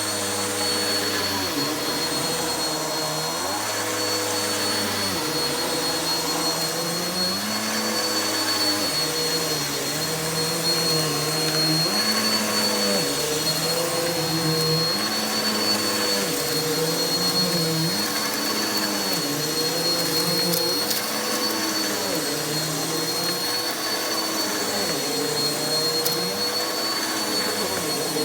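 Vacuum cleaner running on carpet with a steady high motor whine, its lower hum shifting up and down every second or two with the back-and-forth strokes. A couple of faint ticks come about twenty seconds in.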